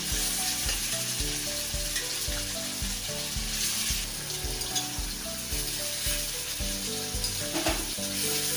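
Paneer cubes sizzling as they fry in hot ghee in a small pan, with background music with a steady beat underneath.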